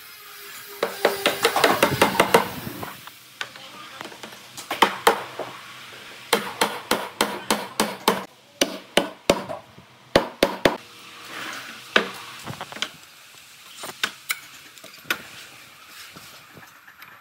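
Tools knocking and tapping on hardwood in irregular runs of sharp strikes, some coming about five a second. A dense, rattling stretch of rapid strikes comes about a second in.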